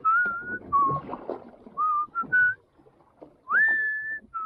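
A person whistling a tune: a run of short notes at different pitches, with a pause after about two and a half seconds, then a note that slides up and is held for most of a second.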